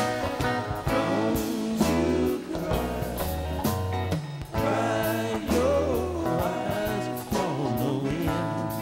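A song playing: a voice singing over guitar and a steady bass line.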